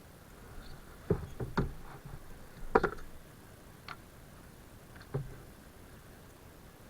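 A handful of knocks and clicks on a kayak, several close together about a second in, the loudest nearly three seconds in, and a couple more near five seconds.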